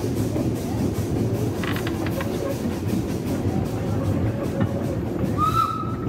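Steam train running, heard from an open carriage window: a steady rumble of the wheels and carriages on the rails, with a few clicks about two seconds in and a brief high tone near the end.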